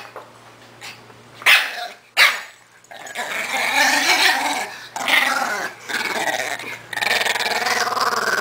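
Small puppy giving three short, sharp barks in the first couple of seconds, then growling in long, wavering stretches with brief breaks.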